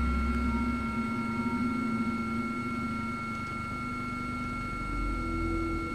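Steady drone of a helicopter heard from inside the cabin, with a constant high-pitched turbine whine over a low rumble that is heavier in the first second.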